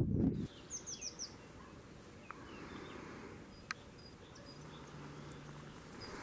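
Small birds chirping in a quiet rural garden: a quick run of four falling chirps about a second in, then scattered short high calls. A low rumble on the microphone cuts off abruptly at the very start, and a single sharp click comes a little after halfway.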